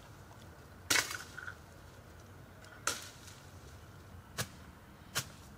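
Machete slashing through brambles and nettles: four sharp swishing strokes a second or so apart, the first the loudest.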